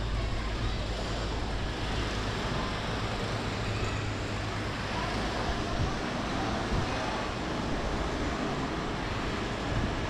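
Steady open-air city background noise, with wind rumbling on the microphone that is heaviest in the first half.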